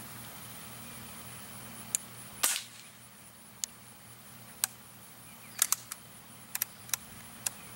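Scattered sharp clicks and knocks from a Crosman 760 Pumpmaster multi-pump air rifle being handled and readied to fire. There is a brief, louder scraping burst about two and a half seconds in, and a quick run of clicks near the end.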